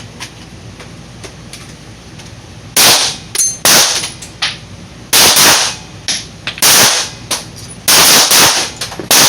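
Pistol shots from several shooters on a firing line: an irregular string of sharp, very loud shots mixed with fainter ones, starting about three seconds in.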